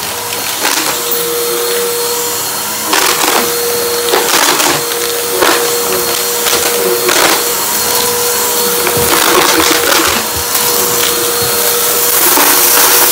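Bissell vacuum cleaner running on a rug with a steady motor whine, its pickup crackling and crunching in short irregular bursts as it sucks up debris.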